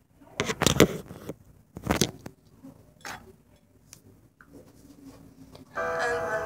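Knocks and rubbing bumps of a phone being handled and settled on a wobbly stand, loudest about a second and two seconds in. Near the end, music starts.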